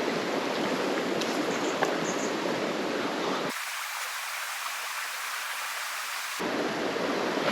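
Creek water running over rocks: a steady rushing hiss. For about three seconds in the middle the lower part of the sound drops away, leaving only a thinner, higher hiss.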